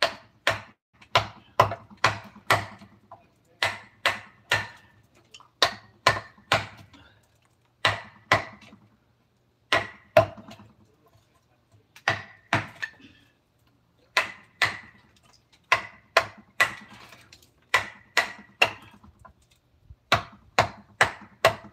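A mallet striking a wood-carving chisel into wood: sharp knocks with a brief metallic ring, about two or three a second, in short runs of three to five strokes with small pauses between them.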